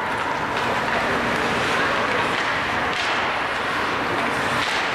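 Ice hockey game in an indoor rink: a steady wash of spectators' voices mixed with skates scraping the ice, with a few sharp clacks from sticks and puck.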